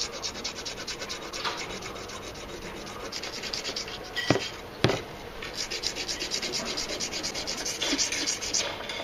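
A hedge shear blade rubbed in quick back-and-forth strokes across a wet whetstone, a rapid, even rasping. Two sharp knocks about halfway through.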